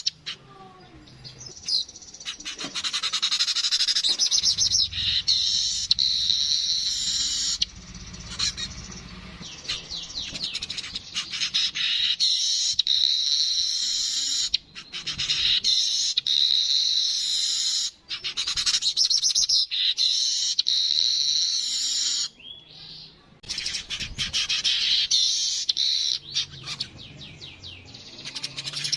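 Yellow-headed weaver (manyar) singing: long phrases of dense, rapid, buzzy chattering, broken by short pauses and one longer pause about three-quarters of the way through.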